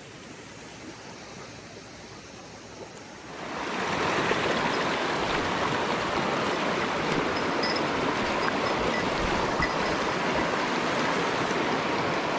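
Mountain stream water rushing. It is fairly quiet at first, then about three and a half seconds in it jumps to a loud, steady rush.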